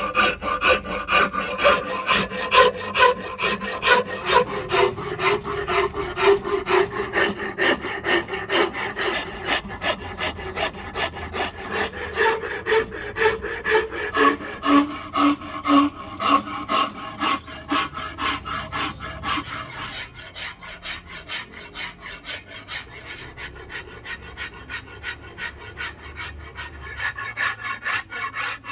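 Hand file rasping along a curly padauk wood axe handle in quick, repeated back-and-forth strokes. A faint ringing tone sits under the strokes during the first half. The strokes go softer from about two-thirds of the way in.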